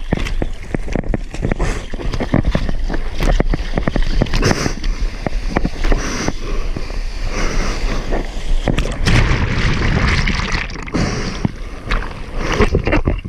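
Seawater splashing, sloshing and rushing right at an action camera's microphone in the surf, with frequent short knocks and thuds from the water and board against the camera.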